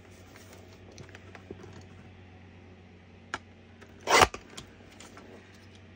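Light scattered clicks and taps of small craft pieces being handled on a table, with a sharper click about three seconds in and a louder knock just after four seconds. A low steady hum runs underneath.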